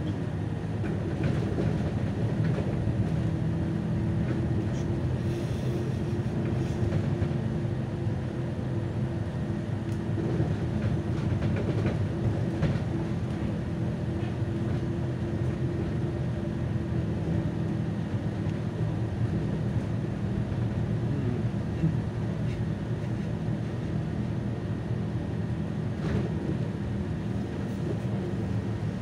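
Solaris Urbino 18 III articulated city bus heard from inside the passenger cabin: a steady low engine hum with running noise, holding level.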